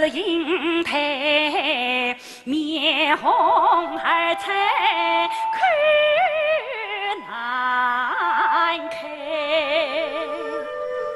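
Yue opera singing: a woman's voice drawing out a sung line in long, wavering, ornamented notes over instrumental accompaniment.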